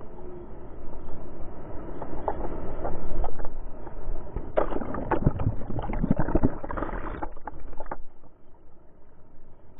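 Churning surf sounds muffled, as if water is washing over the microphone as the wave hits the kayak. A cluster of knocks and thumps comes in the middle, and the noise settles quieter near the end.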